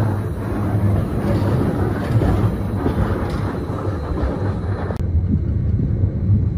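Electric mountain train running on its track, a steady low rumble of the carriage in motion. About five seconds in it cuts off abruptly and a different, duller low rumble takes over.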